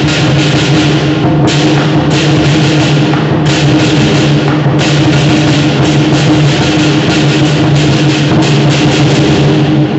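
Lion dance percussion: a big drum beaten fast with cymbals clashing on nearly every stroke, over a steady low ringing tone.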